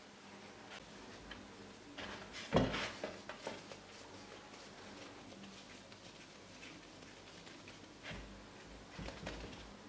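Hands kneading gingerbread dough on a floured wooden board: soft rustles and knocks as the dough is pressed and turned, with a clear thump about two and a half seconds in and two more near the end.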